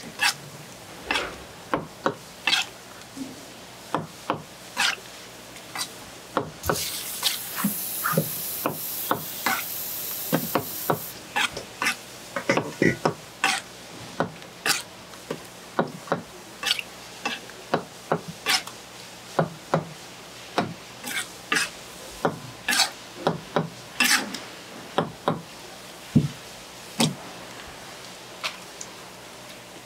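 Kitchen knife tapping and chopping on a plastic cutting board as sea squirt flesh is cut up and scraped: irregular sharp knocks, about one or two a second. A hiss joins in for a few seconds, starting about seven seconds in.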